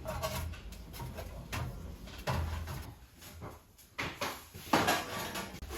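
Several short knocks and clunks about a second apart, the loudest near the end, from something being handled or shifted.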